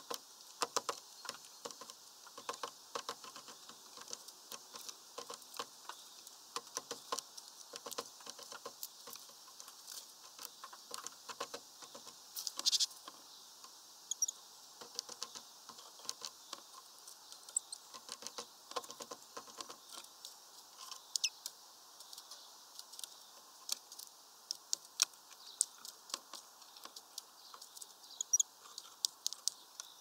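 Irregular rapid clicking and tapping of great tits and other small birds pecking at seed and hopping about a window-mounted feeder and twig perches. A few faint, short high chirps come through now and then.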